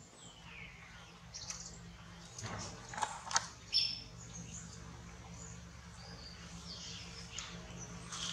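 Scattered short, high-pitched animal chirps and squeaks, some falling in pitch, with the loudest few about three to four seconds in, over a faint steady low hum.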